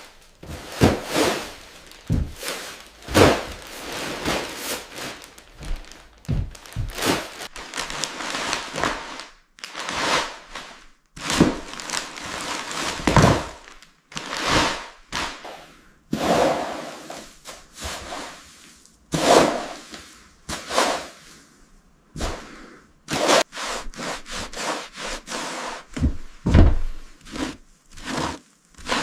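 Irregular thunks, knocks, scrapes and rustles of trash and debris being picked up, dragged and bagged during a cleanup.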